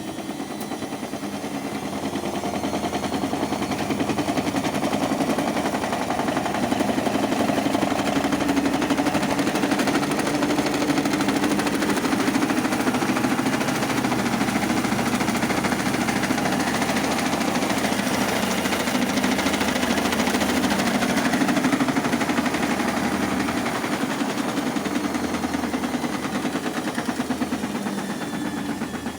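Samsung washing machine motor running the drum with a rapid, stuttering knock: the motor is jerking instead of turning smoothly. It builds up a few seconds in and eases off near the end.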